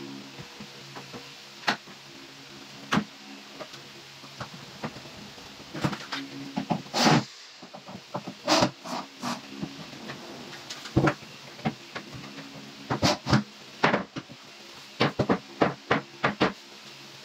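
Laminated melamine cabinet door being handled and fitted on its hinges: irregular sharp knocks and clicks of board and hinge hardware, the loudest about seven and eight and a half seconds in and a quick run of them near the end.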